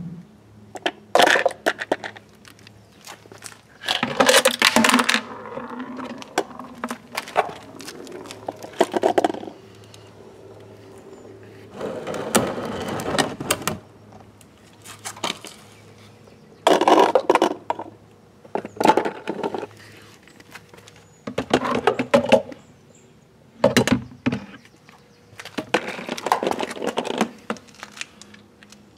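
Hard plastic toy mini wheelie bins clattering, knocking and scraping on concrete as they are picked up and set down with a reacher-grabber tool. The sound comes in irregular bursts of a second or two, with quieter gaps between them.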